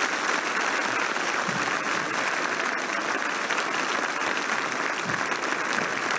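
A large crowd applauding steadily: dense, continuous clapping with no break.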